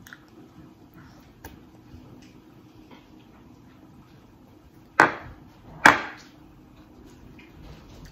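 Two sharp knocks on a hard surface a little under a second apart, among faint clicks of eating at a table.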